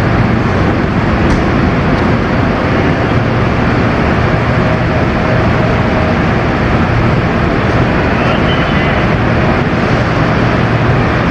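Steady mechanical hum and whir of a KRL commuter electric train standing at the platform with its onboard equipment running, heard at close range with no distinct events.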